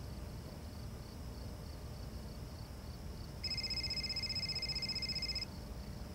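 Cell phone ringing with a trilling electronic ring tone: faint at first, then loud for about two seconds from a little past the middle before breaking off.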